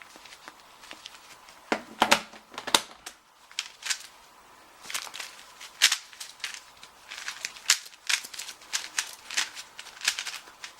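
Rubik's cube layers being turned by hand, giving irregular plastic clicks and clacks, some in quick runs.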